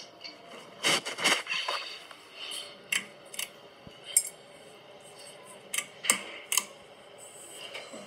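Irregular clicks, taps and short rubbing sounds of a phone being handled and moved about close to its microphone, loudest about a second in and again near four seconds.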